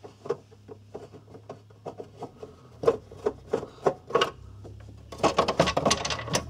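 Screwdriver working the screws of a plastic consumer-unit cover, with scattered clicks and scrapes. A denser stretch of scraping and rattling starts near the end as the plastic front cover is worked loose.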